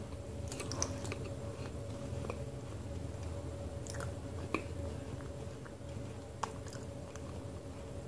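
Close-up mouth sounds of chewing a thick paste of multani mitti (Fuller's earth clay): a few soft clicks and smacks, spaced a second or more apart, over a steady low hum.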